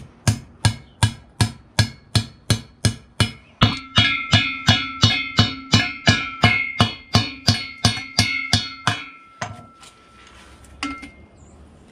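Steady hammer blows, a little over two a second, driving concrete anchors through the base plate of a railing post. From about four seconds in, each blow rings with a clear tone. The blows stop near the end, with a couple of single knocks after.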